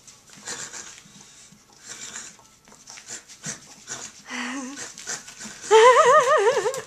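French bulldog puppy playing tug with a rubber toy: short huffs and scuffles, then a loud high-pitched growl that wavers up and down from about six seconds in.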